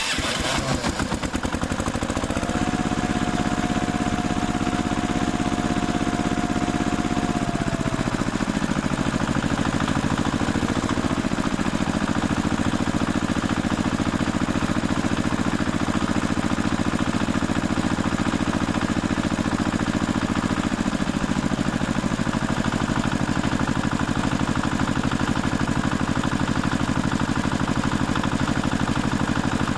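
A steady engine-like running sound, its pitch stepping down about eight seconds in, again around eleven seconds and once more near twenty-one seconds.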